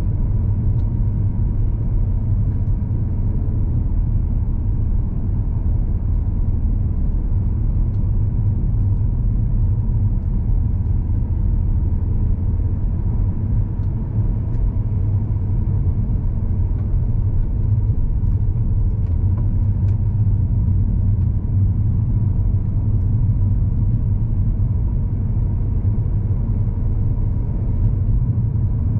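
A car's engine and road noise heard from inside the cabin while driving along a winding road: a steady low rumble that holds even throughout.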